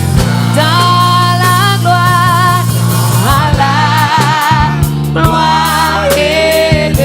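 Gospel worship music: voices singing a held, wavering melody over a band with bass and drums.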